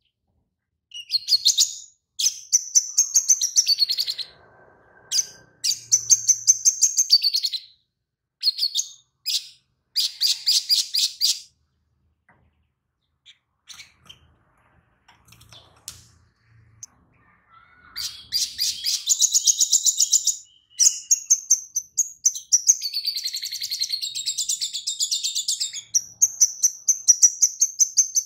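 Caged male sunbird (sogon) singing in bursts of rapid, high chirping trills, sparse in the middle and then nearly unbroken over the last third. It is a song filled with mimicked lovebird phrases.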